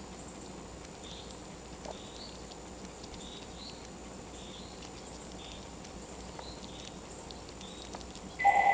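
Gray squirrel gnawing on an acorn: faint, scratchy little scrapes and clicks about once a second. A loud steady electronic beep cuts in near the end.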